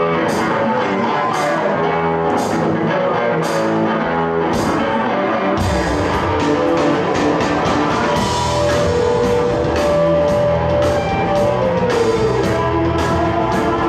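Live blues-rock band playing a song intro: electric guitar with drum hits, then bass guitar and a fuller drum beat come in about five and a half seconds in.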